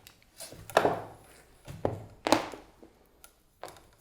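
A few separate knocks and clunks as a small LED light and its stand are handled, about four in all, each dying away quickly.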